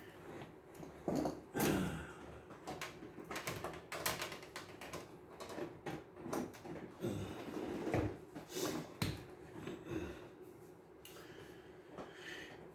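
Irregular clicks and knocks of plastic and metal parts as a cassette deck mechanism is handled and worked on.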